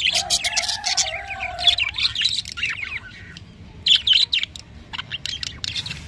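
A flock of budgerigars chirping and chattering in quick bursts, with a lull in the middle. A steady held tone runs under the chirps for the first second and a half.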